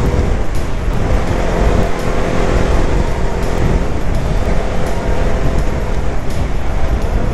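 Motorcycle engine running steadily while riding at speed, with heavy wind rumble on the microphone.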